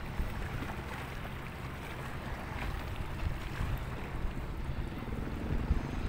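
Wind buffeting the microphone as a steady low rumble, over a constant wash of sea noise along a bay shore.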